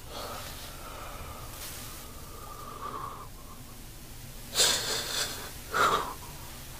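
A man crying with his face pressed into a tissue: muffled wheezing breaths, then two loud sniffs about four and a half and six seconds in.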